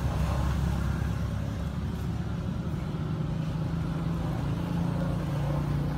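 A motor vehicle engine running at a steady low hum, its tone held through the whole stretch and strongest about two thirds of the way in.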